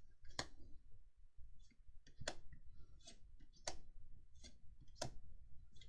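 Magic: The Gathering trading cards being handled: about four sharp clicks a second or two apart, with fainter small ticks and rustles between them.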